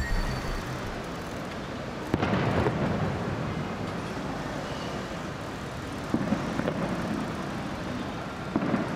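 City street noise as a tram rolls toward the camera along its rails, a steady rumbling hiss with a sharp knock about two seconds in.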